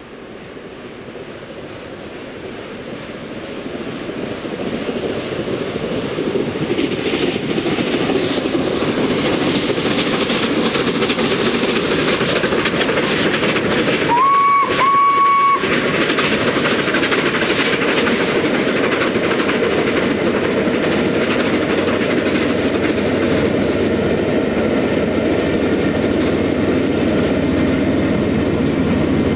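The LNER A3 Pacific Flying Scotsman works hard up the steep Lickey Incline with a train of coaches. Its exhaust grows louder over the first few seconds as it approaches. About halfway through, its whistle sounds: a short blast, then a longer one, about a second and a half in all. After that comes the steady rumble and clatter of the carriages passing.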